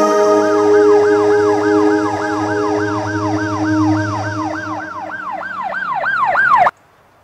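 Emergency vehicle siren in a fast yelp, its pitch rising and falling about three times a second, over held ambient music chords that fade away. All sound cuts off suddenly near the end.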